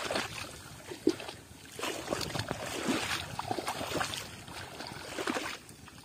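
Splashing and swishing of someone wading through shallow water and tall grass, in irregular bursts that drop away suddenly near the end.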